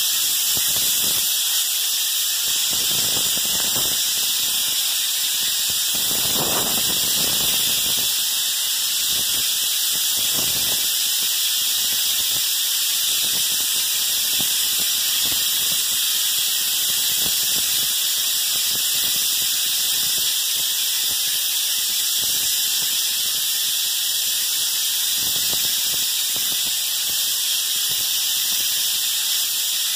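Binks 7E2 texture spray gun hissing steadily as compressed air atomizes drywall mud, spraying orange peel texture onto drywall.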